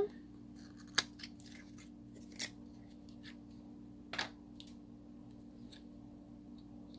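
Small cosmetic packaging being handled and opened: scattered short clicks and rustles, the sharpest about one, two and a half and four seconds in, over a steady low hum.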